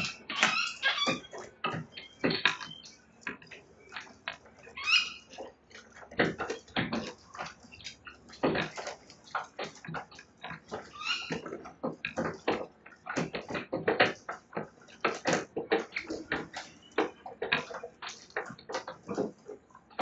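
Sulphur-crested cockatoos gnawing the wooden verandah rail with their beaks: a rapid, irregular run of cracks and crunches as they splinter the timber, with a few brief harsher rasps near the start and about five seconds in.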